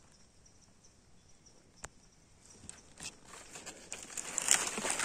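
Faint insect chirping with a single sharp click about two seconds in. From about three seconds in, a rustling, crinkling noise close by builds and is loudest near the end.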